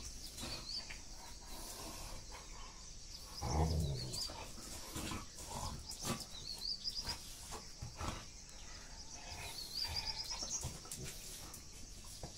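Two dogs play-fighting over a ball, growling and grunting, with the loudest growl a little over three seconds in. Short scuffling clicks run between the growls.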